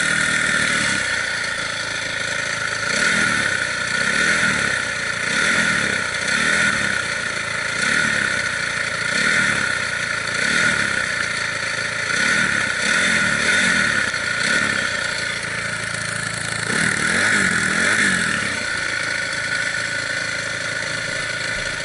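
Dirt bike engine running, its pitch rising and falling again and again under a steady hiss.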